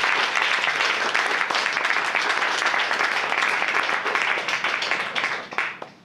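Audience applauding: many hands clapping together in a dense, steady stream that dies away near the end.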